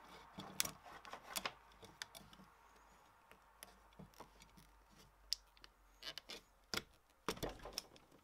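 Faint, irregular clicks and light knocks of small metal parts being handled and unbolted on a wooden workbench, as a solenoid and its bracket are taken off old vacuum pipework. The knocks bunch up near the start and again in the last couple of seconds.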